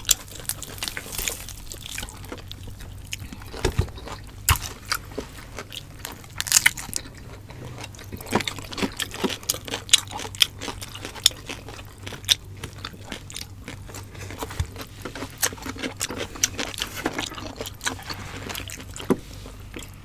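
Chewing and wet mouth sounds of people eating roast suckling pig, with many short smacks and clicks and the soft tearing of the meat being pulled apart by hand.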